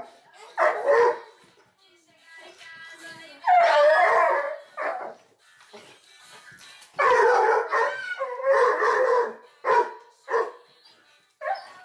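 A dog barking repeatedly in long, drawn-out, partly howling barks, about eight in all with short pauses between them: defensive guarding barks.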